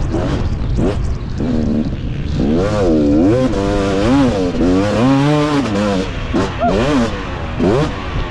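250 two-stroke KTM motocross bike's engine under race load, its revs rising and falling again and again as the rider throttles on and off through the ruts and rises, over a rough low rumble.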